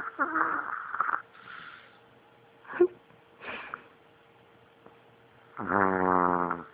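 Chihuahua snoring in its sleep: a snore tailing off at the start, a few short snorts and sniffs, then a long, loud snore near the end that wakes the dog.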